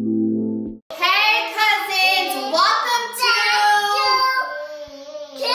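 Soft music with steady held tones cuts off suddenly about a second in; then young children sing loudly together with a woman, in high, bright voices.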